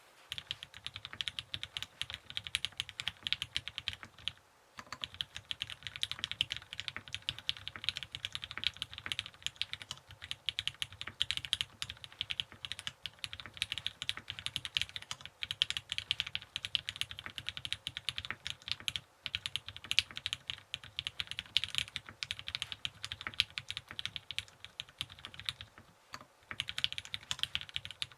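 Typing on a Keycult No. 2/65 custom mechanical keyboard with lubed Hyperglide Cherry MX Black linear switches on an aluminium plate and GMK keycaps: a fast, dense run of keystroke clacks. There are brief pauses about four and a half seconds in and again near the end.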